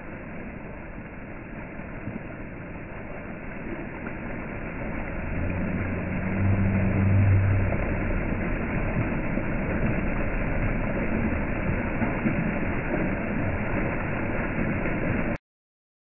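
Fountain jets splashing into a stone basin: a steady rush of falling water that slowly grows louder, with a low hum about six to seven seconds in. The sound cuts off suddenly shortly before the end.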